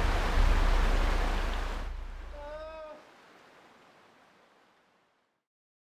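Steady outdoor rushing noise with a deep rumble beneath it, fading away to silence over a few seconds. A short pitched call that rises and falls sounds about two and a half seconds in.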